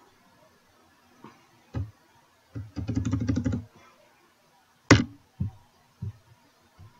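Clicks and taps of a computer keyboard and mouse at a desk: a couple of single taps, a quick run of clicks lasting about a second, then one sharp, louder click near five seconds in, followed by a few lighter taps.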